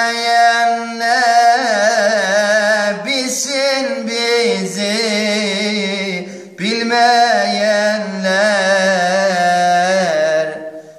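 Song with a voice holding long, wavering, ornamented notes, in two phrases with a short break about six and a half seconds in.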